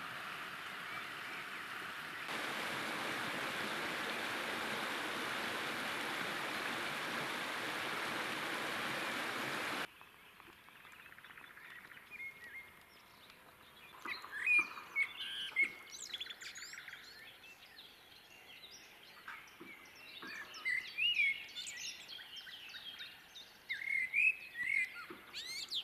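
Running water of a small river rushing steadily for about the first ten seconds, louder from about two seconds in, then cut off abruptly. Songbirds follow, singing repeated short chirping and warbling phrases.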